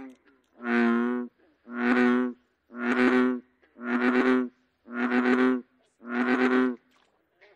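American bullfrog calling: six deep, drawn-out croaks about a second apart.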